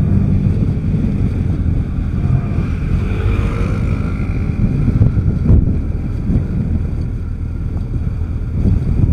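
Kawasaki Z1000's inline-four engine running on the move, under steady wind buffeting on the microphone.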